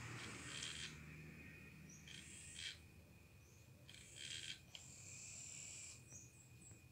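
FurReal Friends animatronic monkey toy whirring faintly in about four short spells as its motor moves its head and face, with a few small high chirps.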